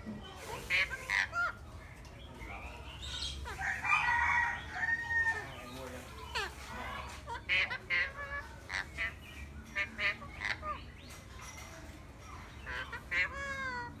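Birds calling: bursts of short squawking calls, a longer harsh call about four seconds in, and a drawn-out call that falls in pitch near the end.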